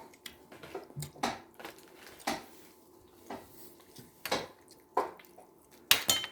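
Tableware clinking during a meal: a handful of scattered light taps of utensils against dishes, with the sharpest pair near the end.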